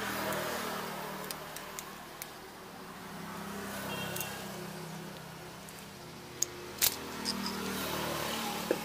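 Pliers working a plastic signal-light bulb socket loose from a scooter's lamp housing: a few light clicks and a sharper snap about seven seconds in, over a steady background hum.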